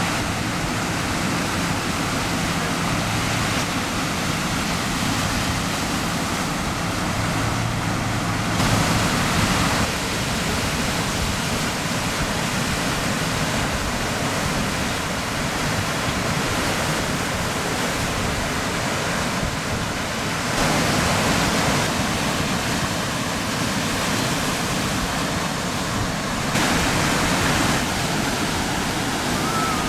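Steady rush of ocean surf breaking, a continuous wash of noise. It steps louder for a second or two about nine seconds in, about twenty-one seconds in and near the end.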